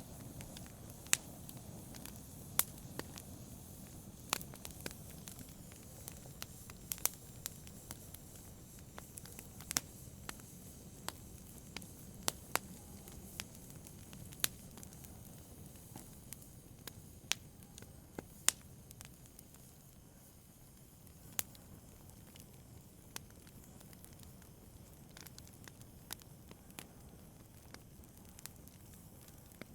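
Wood fire burning in a fireplace: a soft low rumble of flames with sharp crackles and pops at irregular intervals.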